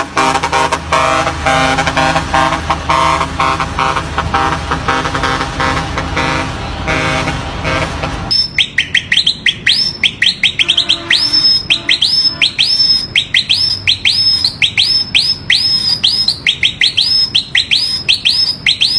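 Novelty truck horns. For about the first eight seconds a musical air horn plays a tune in quick notes. Then an electronic bird-call horn on a Foton Auman truck chirps over and over, about two sharp rising chirps a second.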